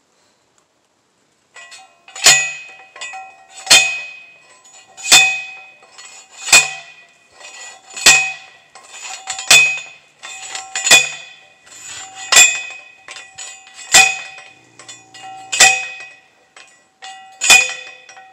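Metal fence post being pounded into the ground: a loud ringing metal clang about every second and a half, eleven strikes in all from about two seconds in, with lighter clinks between them.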